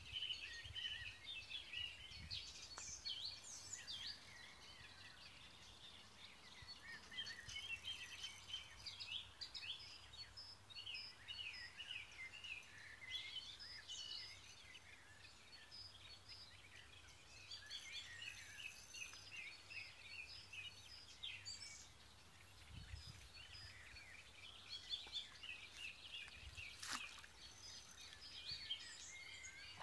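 Songbirds singing and chirping: a steady chorus of many short, high chirps and trills from several birds. Near the end there is one brief sharp click.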